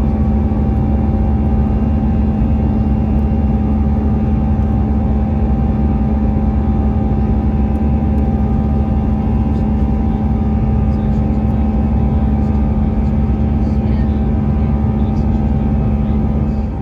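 Airbus A320 cabin noise in flight: the jet engines and rushing airflow running at a steady loud level, with a constant hum through it.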